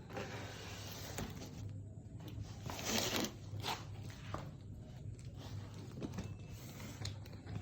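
Packaging being handled and torn open: scraping, rustling and tearing with scattered clicks, loudest in one tearing burst about three seconds in.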